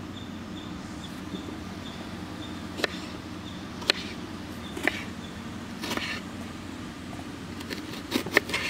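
Outdoor ambience with a steady low hum and a faint regular high ticking, then a few sharp knocks about a second apart. Near the end, a knife chopping through raw plantain onto a wooden cutting board gives a quick cluster of sharp knocks.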